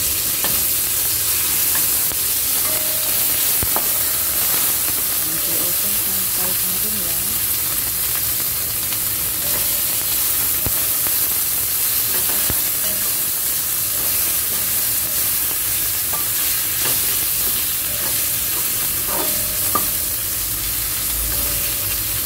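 Ginger slices, minced garlic and fermented black beans sizzling steadily in hot oil in a wok, stirred with a plastic spatula that scrapes and taps the pan now and then. The aromatics are frying until fragrant.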